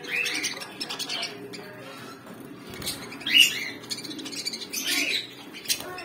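Caged budgerigars and lovebirds chirping and squawking: a steady chatter with several short, sharp calls, the loudest about three and a half seconds in.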